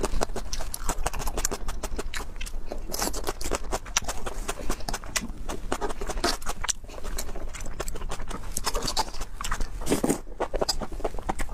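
Close-miked eating sounds: fast, wet chewing and lip smacking in a dense run of clicks, with noodles slurped in near the end.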